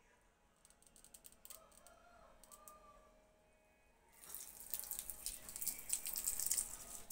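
Faint clicks, then about four seconds in water starts gushing from a garden hose fed by an outdoor tap, a steady hiss that lasts to the end.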